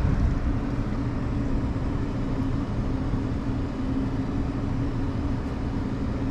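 Steady mechanical hum of running refrigeration equipment at a walk-in cooler's condensing unit, with a low droning tone that holds level throughout.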